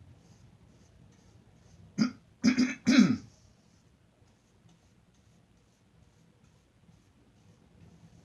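A person clearing their throat or coughing three times in quick succession, about two seconds in. Behind it, the faint, regular scratching of a paintbrush on canvas.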